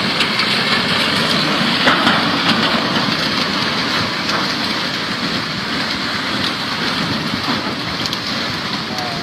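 Rushing flash-flood water: a loud, steady rush of noise with a few faint knocks, easing slightly near the end.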